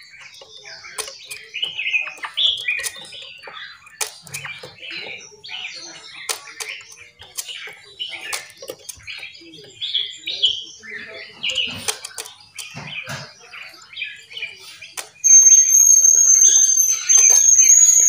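Several small caged songbirds chirping and calling in quick, overlapping notes. Near the end, a loud, steady high-pitched tone sets in and holds, louder than the birds.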